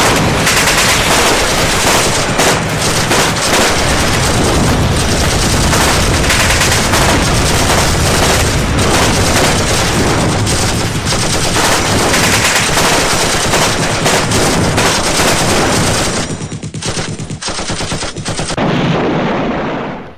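Loud, dense automatic gunfire laid over the opening titles as a battle soundtrack. It runs without a break, turns choppy about sixteen seconds in, and fades out near the end.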